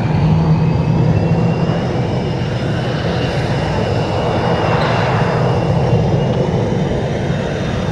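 Twin AL-31F turbofan engines of a Sukhoi Su-27 Flanker running at taxi power: a steady, loud jet rush with a high whine that slowly falls in pitch.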